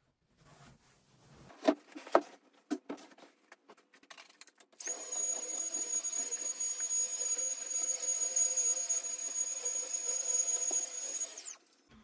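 A few clicks and knocks, then a small electric motor-driven appliance runs with a steady high whine for about seven seconds and is switched off, its pitch dropping as it stops.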